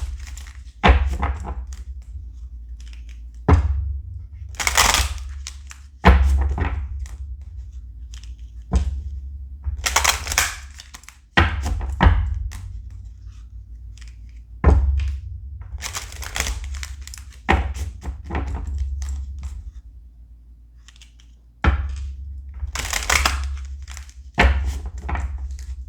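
Tarot cards being handled and shuffled: about a dozen short bursts of card rustle, each with a low thump, one every second or few seconds.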